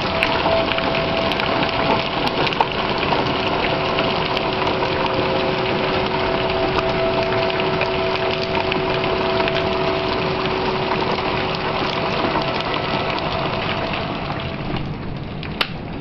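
Heavy rain pouring and pattering. Behind it an outdoor tornado warning siren holds a steady two-note tone that fades out near the end, and there is a single sharp tap just before the end.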